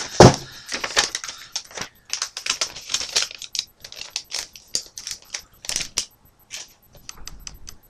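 Rapid, irregular clicking and rattling of the small hard plastic and metal parts of an airsoft M203 grenade launcher being handled, thinning out near the end.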